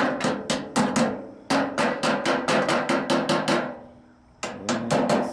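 Quick runs of sharp metal clacks from the mechanism of an 1898 Smith Premier No. 2 typewriter being worked by hand, about five or six a second, with a brief pause about four seconds in. Each clack rings briefly.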